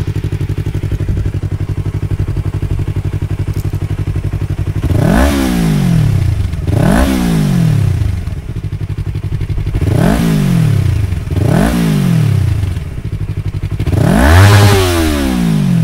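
Yamaha R3's parallel-twin engine through a Yoshimura R77 slip-on exhaust with its silencer insert fitted, idling steadily and then blipped five times. Each rev rises and drops back quickly; they come in two close pairs and then one last, bigger and longer rev near the end.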